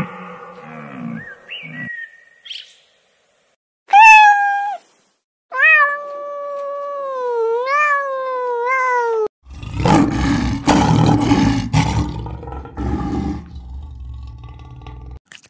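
A kitten meowing: one short call, then a long wavering meow that rises and falls. Then a lion roaring: a rough series of deep, pulsing roars lasting about five seconds.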